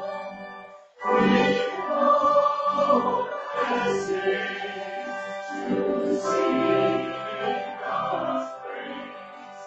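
A congregation and choir sing a hymn together. About a second in, the singing stops briefly between phrases and then starts again at full strength.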